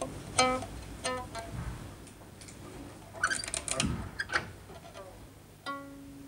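Strings of a Chinese plucked string instrument being tested during tuning, with two slack strings being brought back to pitch. A single plucked note comes about half a second in and another about a second in. A quick run of higher plucks follows around three to four seconds, then one lower note rings on near the end.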